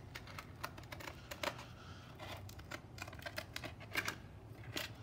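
Scissors cutting through a sheet of grip tape: a run of small, irregular snips and crackles, a few louder near the end.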